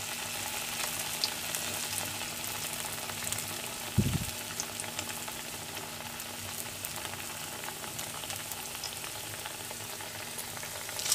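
Batter-coated brinjal (eggplant) slices frying in hot oil in a kadai: a steady sizzle with fine crackles, and a single dull bump about four seconds in.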